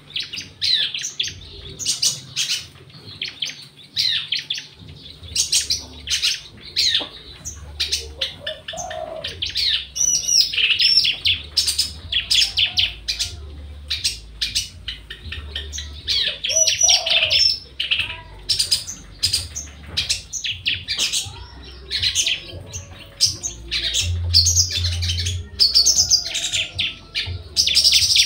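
Javan bush lark (branjangan) singing actively: a continuous run of quick chirps and rapid trills with hardly a pause.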